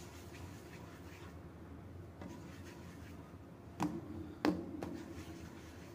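Hands rolling small balls of bread dough on a granite worktop: a faint rubbing, with two short knocks on the counter a little under a second apart about four seconds in.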